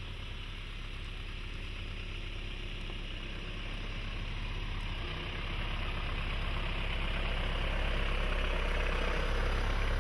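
Toyota Hilux's 2.4-litre four-cylinder diesel engine running steadily as the pickup crawls slowly over grass, growing louder as it draws near.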